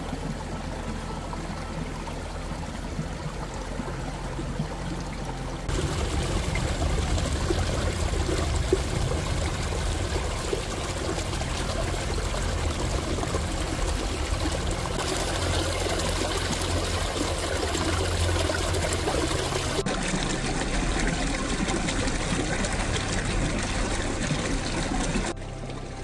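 Water of a small, partially frozen stream trickling and pouring over rocks, a steady splashing rush. It gets louder about six seconds in and drops back near the end.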